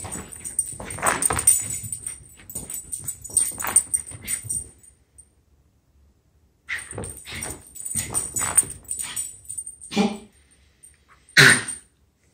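A small dog and a kitten play-fighting: paws scuffling on carpet, with the dog whining and giving short play vocalizations, the loudest a brief sharp yip near the end.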